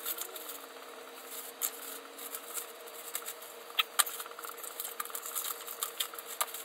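Clear plastic packaging crinkling and rustling as parts are unwrapped by hand, with scattered light clicks and taps, the sharpest about four seconds in. A faint steady hum runs underneath.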